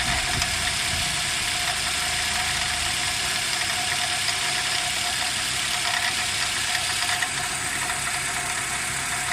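Nissan X-Trail engine idling with a steady high squeak from the accessory belt's tensioner pulley, along with a light rattle; the owner takes the worn tensioner pulley for the cause.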